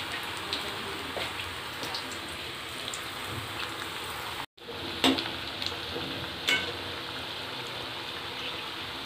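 Cauliflower fritters deep-frying in hot oil in a wok: a steady sizzle with scattered small crackles. The sound drops out for a moment about halfway, and soon after there are a couple of sharp metal knocks as a wire strainer touches the wok.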